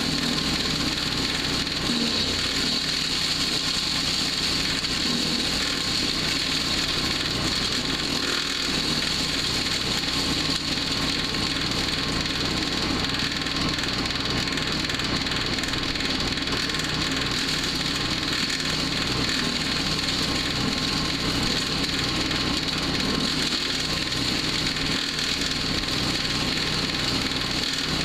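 Small gasoline engine of a PowerHorse wood chipper/shredder running at a steady speed, an unbroken mechanical drone with a high hiss over it.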